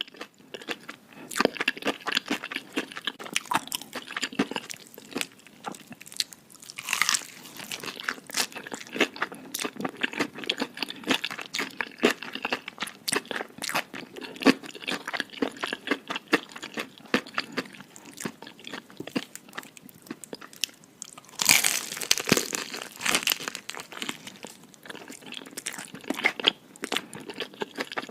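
Close-up eating sounds: crunchy food being bitten and chewed, a dense run of short crisp crunches, louder in bursts about seven seconds in and again near the twenty-two-second mark.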